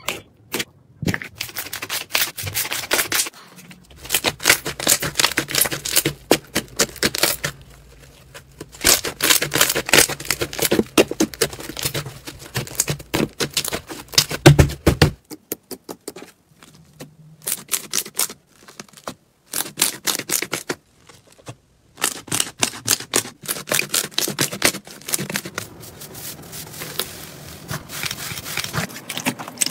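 Slime being squeezed and kneaded by hand, giving rapid bursts of sticky clicking and popping crackles, broken by several short silent gaps.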